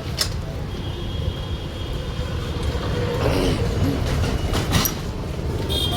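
Motorcycle engine running steadily with a low, fast-pulsing rumble, with a couple of sharp metallic clicks, one just after the start and one near the end.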